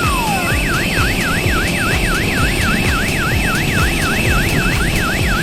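Electronic siren: a falling tone repeated about twice a second switches, half a second in, to a fast up-and-down wail of about four cycles a second, over a steady high tone and a low pulsing beat.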